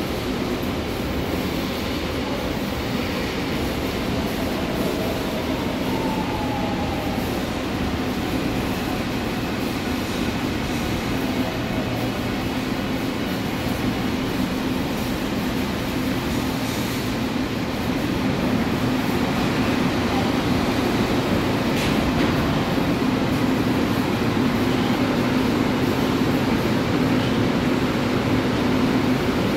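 Seoul Line 7 subway train pulling in along the platform screen doors and braking to a stop, its motor whine falling in pitch. From a little past halfway, a steady low hum as the train stands at the platform.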